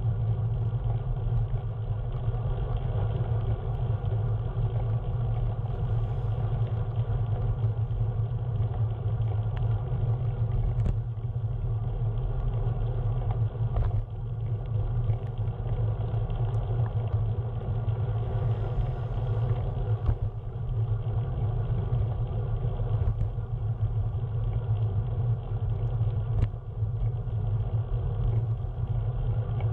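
Steady low rumble of a vehicle in motion, with a few faint ticks scattered through it.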